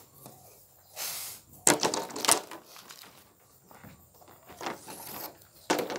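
Loose wooden boards and plywood offcuts knocking and clattering as they are handled: a short scrape about a second in, then a quick run of sharp wooden knocks, the loudest part, and a few more knocks near the end.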